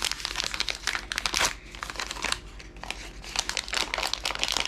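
Plastic wrapping of a Mini Brands collectible crinkling and crackling in irregular bursts as it is handled and opened.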